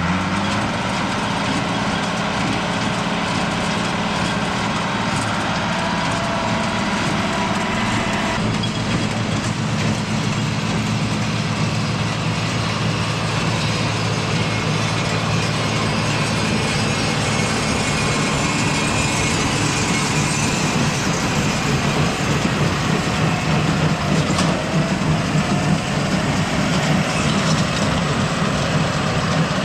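Farm tractor engine running steadily under load, with a slight change in its sound about eight seconds in.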